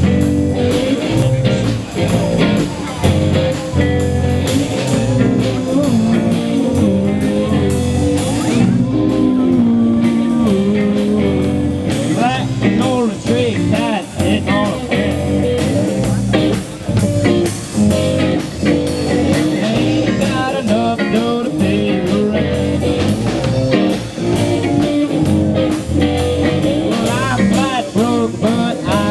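Live youth rock band playing a bluesy rockabilly cover, with electric guitars through amplifiers and a drum kit keeping a steady beat.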